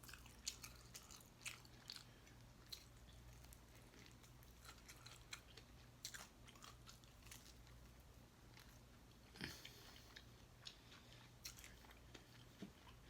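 A person chewing and biting food close to the microphone: irregular short mouth clicks, with a louder one about nine and a half seconds in.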